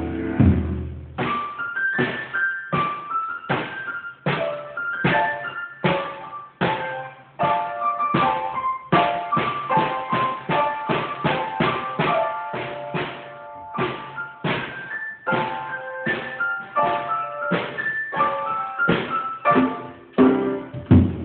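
Drum kit and piano jamming together, the piano hammering out rhythmic chords. The bass drum and heavy drumming drop out about a second in, leaving mostly piano chords, and the full kit comes back in near the end.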